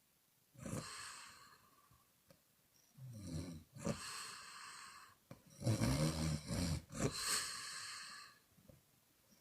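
A woman snoring in her sleep: a breathy breath about half a second in, then a snore with a low buzzing tone about three seconds in and a louder one about six seconds in, trailing off into a long airy exhale.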